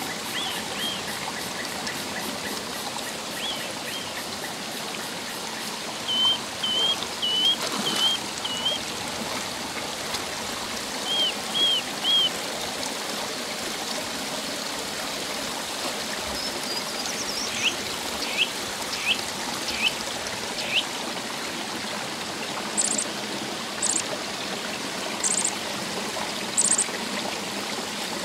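Shallow rocky stream running and trickling steadily, with birds chirping over it in short high calls in scattered groups, and a few sharp, very high notes near the end.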